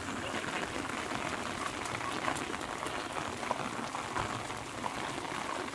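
Steady rain falling on a wet paved road and the leafy plants beside it, an even hiss with scattered drop ticks.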